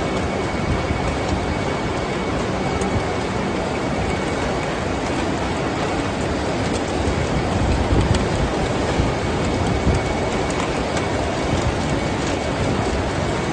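Steady machinery din of a cannery filling line, with the conveyor running as tinplate cans of lychees are filled with syrup.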